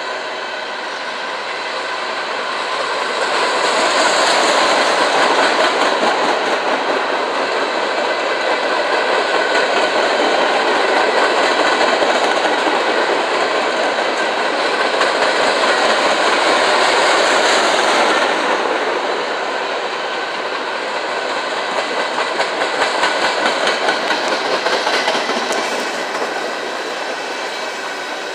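Freight cars of a CSX manifest train rolling past with a steady rail rumble and clatter, loudest for the first two-thirds. It eases off as the last cars pass, with a rhythmic run of wheel clicks near the end.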